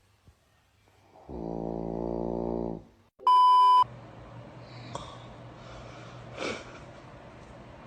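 A person snoring: one long, buzzy, pitched snore of about a second and a half. It is followed by a loud, short, steady beep tone, then a low hum and room noise with a brief noisy burst near the end.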